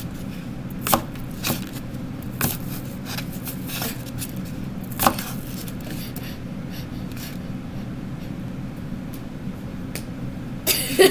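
A kitchen knife cutting apple slices, the blade knocking on the cutting board in irregular, separate strokes.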